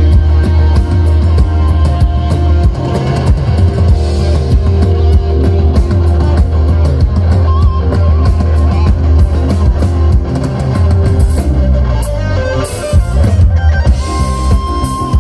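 Live rock band playing an instrumental passage without vocals: a Stratocaster-style electric guitar leads over a drum kit and keyboard.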